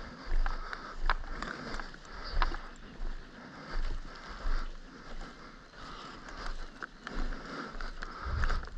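An airsoft player's footsteps with clothing and kit rustling at a walking pace, a step about every 0.7 s, with a few sharp clicks in between.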